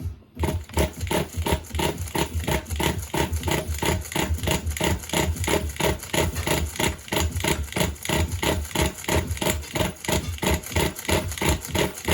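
3.0-litre four-wheel-drive engine cranking on its starter motor, an even run of about five compression pulses a second that never catches. The engine is cold and has not run for five months, and it will not start.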